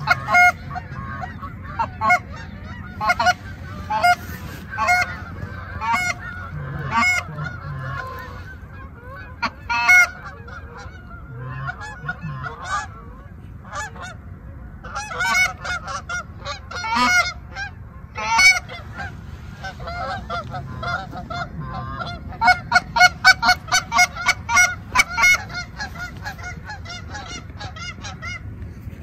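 Goose honking and clucking: many short, sharp calls in quick runs, densest near the end at about four calls a second, over a low steady rumble.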